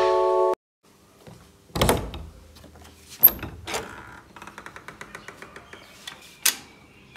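A keyboard jingle cuts off about half a second in. Then come a few knocks and clicks of a door being handled, with a quick run of light ticks, about six a second, in the middle.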